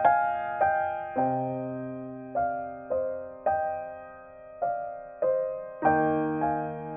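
Background music: a slow piano melody. Single notes are struck every half second to a second and each fades away, over held lower notes.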